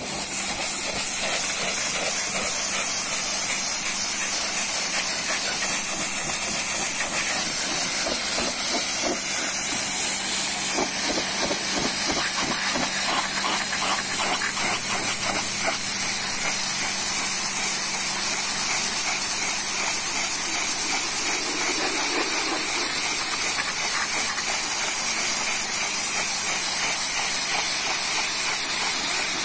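Pressure-washer jet spraying water onto a car's body panels and wheel: a loud, steady hiss with a low steady hum underneath.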